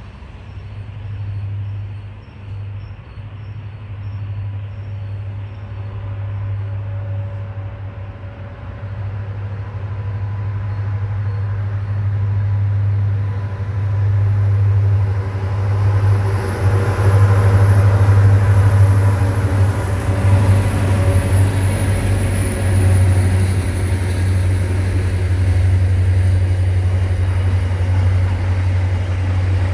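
Freight train approaching and passing: a steady low locomotive drone grows louder to its peak about two-thirds of the way through, then container and tank wagons roll past with a high whine over the rumble.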